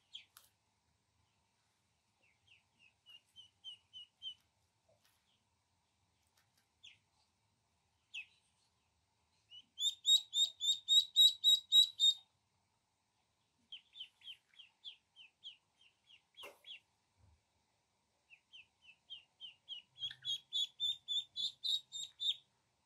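Ducklings peeping: several runs of short, high peeps, about four a second, the loudest run near the middle.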